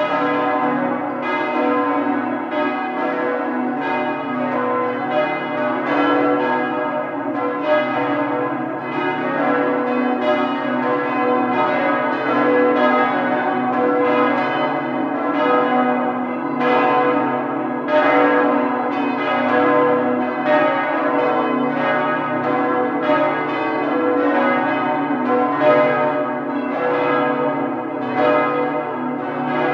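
A peal of church bells, tuned bells struck one after another in quick, even succession, each ringing on under the next.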